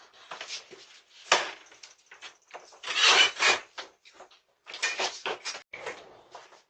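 Irregular knocking and clattering, with a sharp knock about a second and a half in and a louder stretch of rattling clatter around three seconds.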